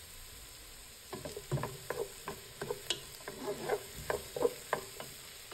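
Wooden spoon stirring diced onion, fennel and garlic as they fry in olive oil in a stock pot, in quick irregular strokes against the pot from about a second in. A faint steady sizzle runs underneath.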